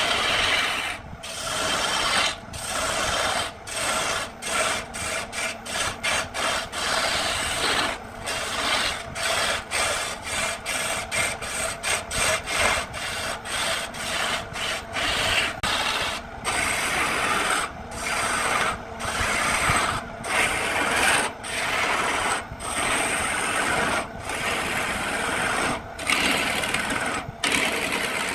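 Turning chisel cutting a spinning cedar spindle on a wood lathe: a rough scraping hiss of the tool peeling off shavings, broken into many short strokes as the tool is lifted and set back, the strokes coming quickly through the middle.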